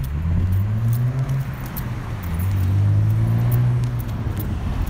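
Ducati Streetfighter 1098 S L-twin engine running through a Termignoni exhaust, its revs rising slowly and easing off twice.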